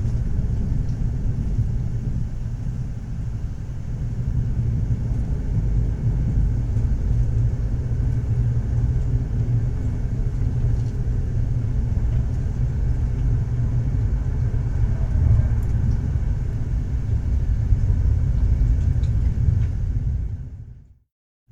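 Steady low rumble of a moving passenger train, heard as if riding in the carriage. It fades out to silence just before the end.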